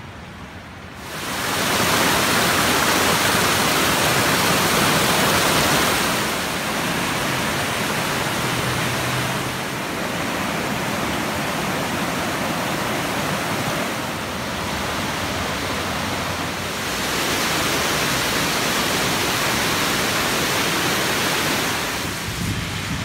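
Rushing floodwater in a river running bank to bank: a loud, steady rush that starts about a second in and steps up and down in loudness every few seconds.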